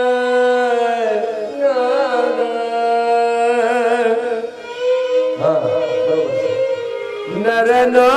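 A devotional bhajan sung with instrumental accompaniment. A voice holds long, drawn-out notes and bends through an ornamented passage, with one brief dip partway through.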